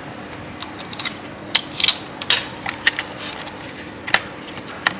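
Irregular sharp clicks and taps of small hard objects being handled on a repair bench, about seven in all, over a faint steady hum.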